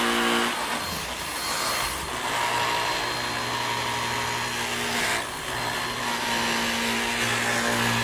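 Vorwerk Kobold vacuum cleaner running steadily on its lowest power setting, its handheld upholstery nozzle drawn across a fabric sofa, with a brief dip in level about five seconds in.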